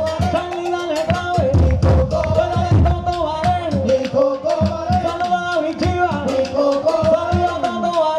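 Puerto Rican bomba played live: hand-struck barrel drums (barriles de bomba) under voices singing a held melody.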